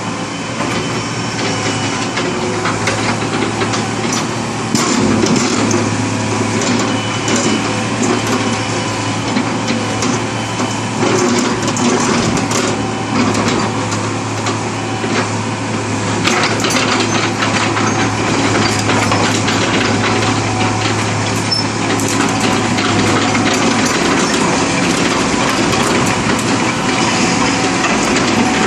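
Hitachi UH045-7 hydraulic excavator's diesel engine running steadily, with repeated knocks and clatter over it. Its steady low hum changes about 23 seconds in.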